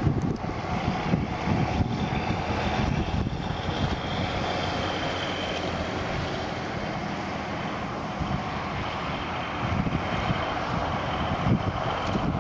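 Wind buffeting the microphone in uneven low rumbles over the steady rush of a shallow stream.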